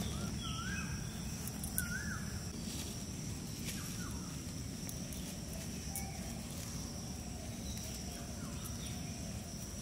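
Forest ambience: a bird gives a few short whistled notes during the first four seconds over a steady high insect drone.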